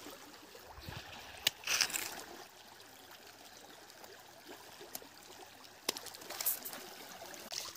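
Shallow stream trickling steadily, with a few sharp clicks and a brief rustle about two seconds in.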